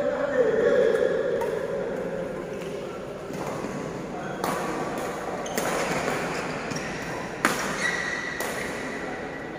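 Badminton rackets striking a shuttlecock during a rally in an echoing sports hall: five sharp hits over the second half, roughly one a second.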